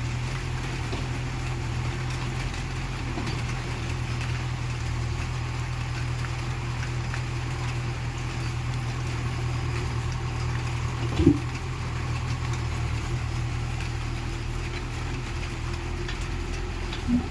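Excavator diesel engine running steadily at low revs, with a single sharp knock about 11 seconds in and a smaller one near the end.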